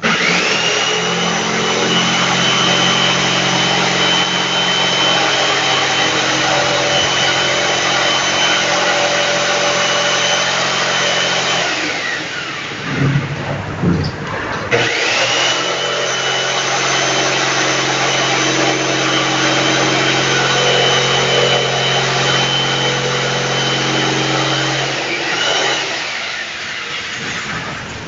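Electric jigsaw cutting holes in the wooden top of a speaker box. The motor starts, runs steadily for about eleven seconds, then winds down with a falling whine. After a short pause with a few knocks it starts again, runs about ten more seconds and winds down near the end.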